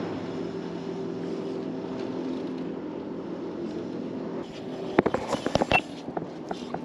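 A motor drones steadily at an even pitch. Near the end come several sharp clicks and knocks.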